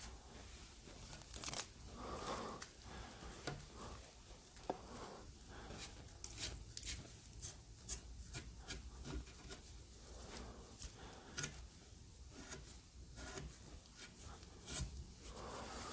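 Faint rustling and rubbing of clothing and a gloved hand moving around a painted figurine, with scattered small clicks and taps.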